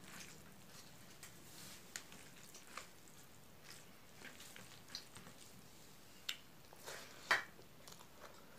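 Faint wet squishing of rice being mixed with milk curry by hand on a plate, with scattered soft clicks. Near the end come two louder mouth sounds of eating and chewing.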